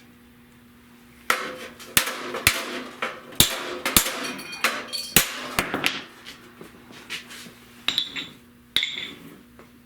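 Hammer blows on the sheet metal of a car's radiator support, knocking a high area down to straighten it. After a quiet first second comes a fast, irregular run of strikes, some ringing metallically, that stops shortly before the end.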